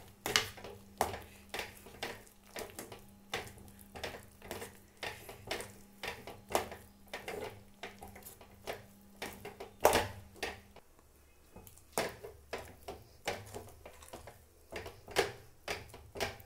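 A spoon stirring and scraping thick rava kesari (semolina halwa) in a metal pan, knocking against the pan about twice a second as the mixture thickens toward done. A low steady hum underneath stops about two-thirds of the way through.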